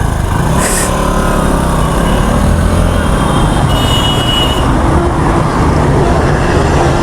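Motorcycle and road traffic noise: a steady, deep rumble. A short hiss comes about a second in, and a brief high tone around four seconds in.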